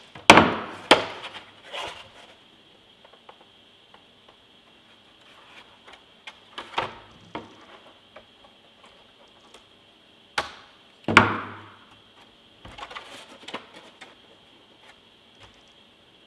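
Sharp clicks and knocks from 3D-printed plastic model parts and hand tools being handled on a tabletop. There are a few separate clusters, each knock with a short rattling decay, and the loudest come just after the start and about eleven seconds in.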